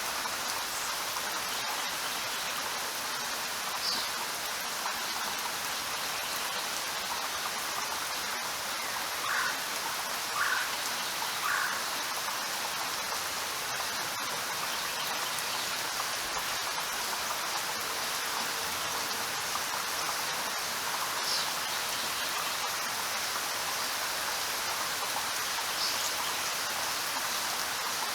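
Steady, even rain. A few brief, high chirps sound over it, three of them about a second apart just before the middle.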